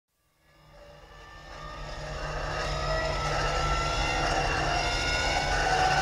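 Aircraft inertia starter on a 1929 Travel Air biplane spinning its flywheel up to speed. The whine fades in, grows louder over the first few seconds, then holds while its pitch keeps creeping upward over a steady low hum.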